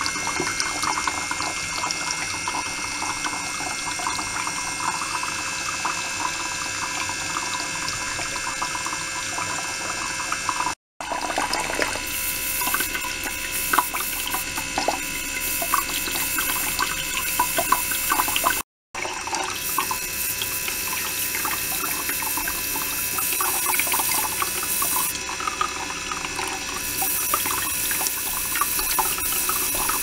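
Water running and splashing steadily into a small tank, with a few faint steady high tones over the rush of water. The sound drops out completely twice for a split second, about a third and two thirds of the way in.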